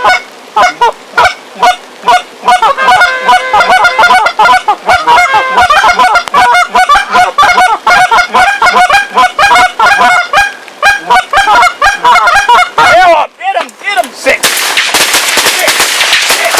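Many Canada geese honking together in rapid, overlapping calls. At about fourteen seconds the honking stops, and a steady rushing noise takes over.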